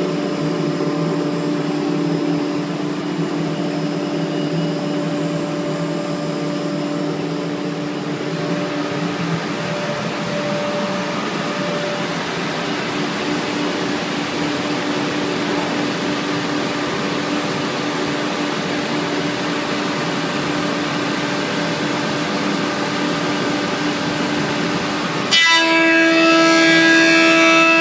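Panel-processing machine for compact laminate running with a steady machine noise and a low droning tone. About 25 seconds in, a louder whine with several pitched tones sets in.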